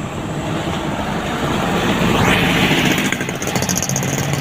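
A large vehicle, most likely a truck, passing on the highway: engine and tyre noise build to a peak about halfway through and then ease off.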